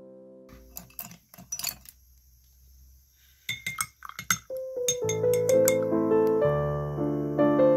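Paintbrush swished in a glass jar of rinse water, the brush clinking against the glass in two short runs of taps. Soft piano music stops at the start and comes back about five seconds in.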